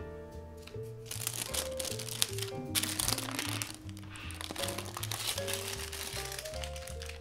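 Parchment paper crinkling as it is peeled away from the side of a baked sponge cake, starting about a second in, over background music.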